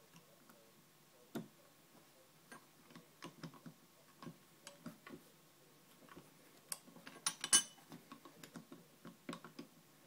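Irregular small metallic clicks and ticks of a dimple pick working inside a Mul-T-Lock dimple padlock, with a short, louder cluster of clicks a little past the middle.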